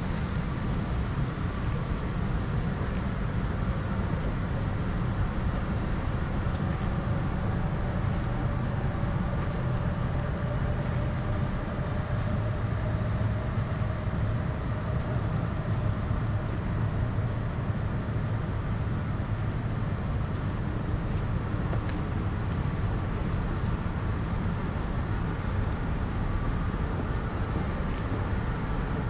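Steady low vehicle rumble at an even level, with a faint hum that drifts slightly in pitch through the middle.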